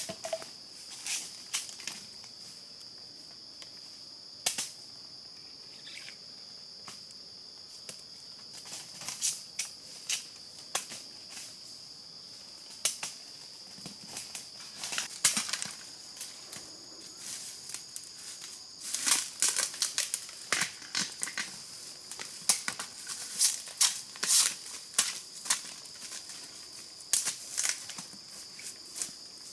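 Steady high insect drone, with many sharp snaps and cracks on top, scattered at first and coming thickly about two-thirds of the way through.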